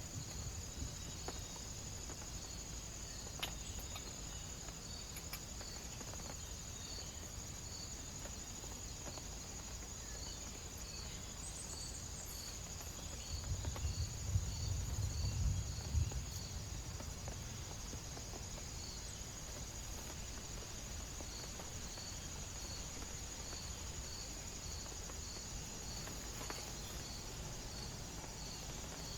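Crickets chirping in a steady, even rhythm about one and a half chirps a second over a constant high insect whine, with a low rumble underneath that swells for a few seconds about halfway through.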